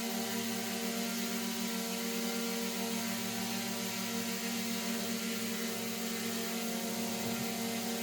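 DJI Mini-series drone hovering: its four propellers make a steady hum with a slight regular pulsing.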